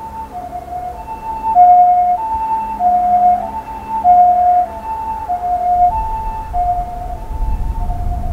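Emergency vehicle's two-tone hi-lo siren, alternating between two pitches about every half second. In the last couple of seconds a low rumble rises beneath it as the landing jet airliner rolls out after touchdown.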